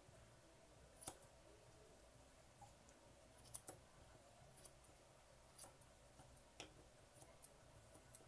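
Grooming shears snipping through a Maltese's long coat: about a dozen faint, sharp, irregularly spaced snips, the loudest about a second in.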